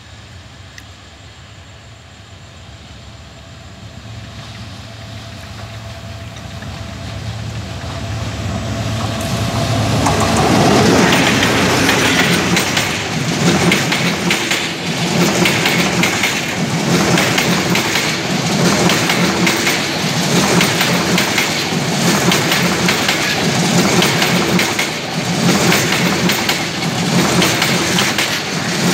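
Diesel-hauled passenger train approaching, its locomotive's engine growing steadily louder for about ten seconds and passing close, then a long rake of PT INKA passenger coaches running past with the wheels clattering over rail joints in a steady repeating rhythm.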